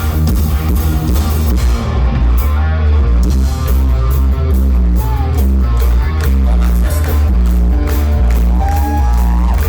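A live hard rock band playing loud: electric guitars over a heavy, steady bass, in a dense, rhythmic wall of sound.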